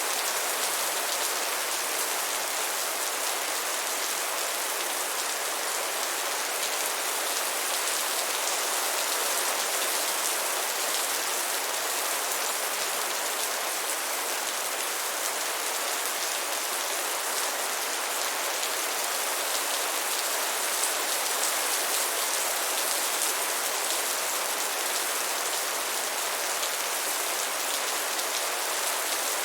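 Steady rain falling: an even hiss of many drops with fine patter, unchanging throughout.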